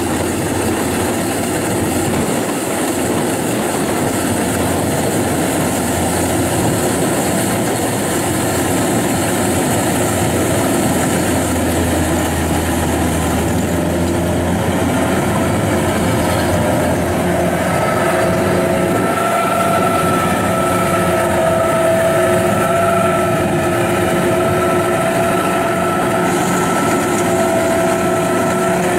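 Kubota DC-93 rice combine harvester running under load, its diesel engine, threshing gear and crawler tracks making a steady mechanical din as it works through sticky paddy mud. A steady whine joins the din a bit past halfway.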